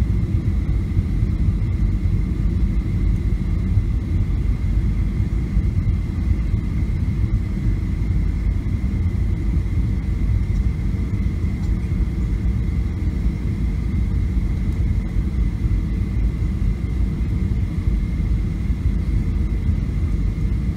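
Steady cabin rumble of a Boeing 737-700 in flight, from its CFM56-7B engines and the air rushing past, with a thin steady whine above it. A faint lower tone joins about halfway through.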